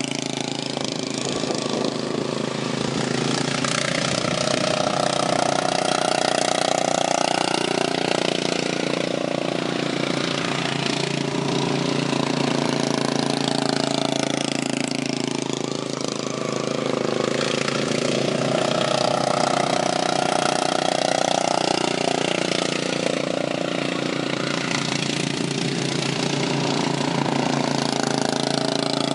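Racing lawn mower engines running hard around the track, with one coming louder past twice, about fourteen seconds apart, its pitch bending as it goes by.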